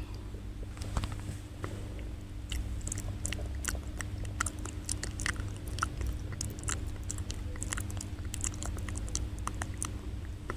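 ASMR mouth sounds close to the microphone: wet clicks and smacks of tongue and lips, several a second and irregular, over a steady low hum.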